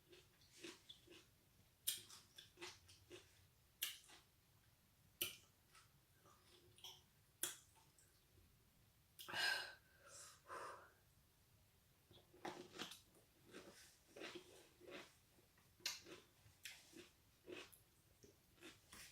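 Close-up eating sounds: a person chewing crunchy food, with irregular wet clicks and crunches. A louder breath comes about halfway through.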